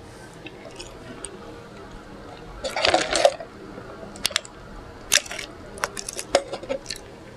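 Close-miked wet mouth sounds of a person eating: a louder wet smack about three seconds in, then a run of short, sharp lip smacks and clicks.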